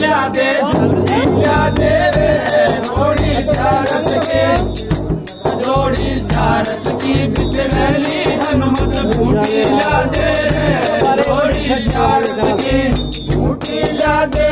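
Holi dhamal folk song: men singing in chorus to a chang frame drum and small metal hand cymbals (manjira) keeping a steady beat.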